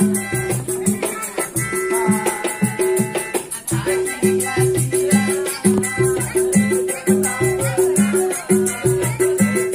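Street busker's music: a melodica playing a melody over a steady, quick percussion beat with a rattling shaker.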